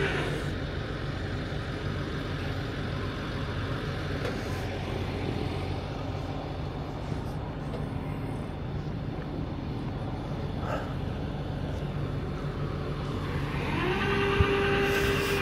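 Flatbed tow truck's engine running at a steady idle. Near the end a higher steady whine rises in.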